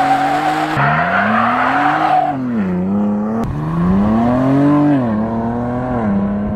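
Ford Bronco Raptor's 3.0-litre twin-turbo V6 accelerating at full throttle with the exhaust in its loudest mode. The engine note climbs through the revs and drops at upshifts about two and a half and five seconds in, then holds steady. A tyre squeals over the first two seconds of the launch.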